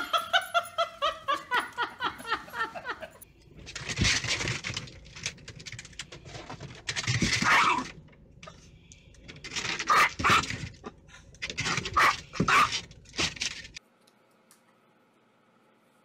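Dogs yipping excitedly in a fast run of short, high, falling yelps, about five a second, for the first three seconds. Then come several louder, rough bursts of sound, and the last two seconds are near silent.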